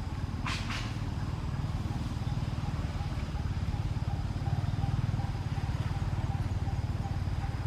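A motor engine running steadily with a low rumble that grows a little louder midway. Two short sharp clicks about half a second in.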